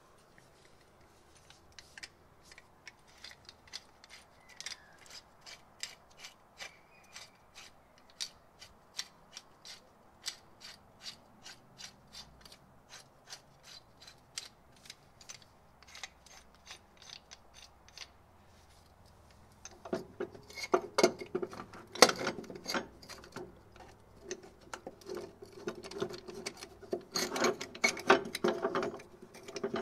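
Hand ratchet wrench clicking as it is worked, a slow even run of sharp clicks about two a second. About two-thirds of the way in the clicking turns faster and louder into a denser metallic clatter.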